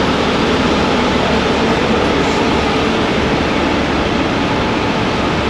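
Heavy-duty wrecker's diesel engine running at a steady idle under a constant hiss.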